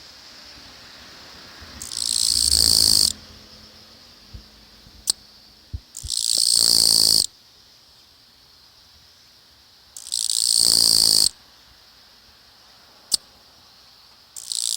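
Japanese katydid (kirigirisu) singing close up: loud, high-pitched buzzing phrases, each about a second and a half long, repeated about every four seconds, three in full with a fourth starting near the end.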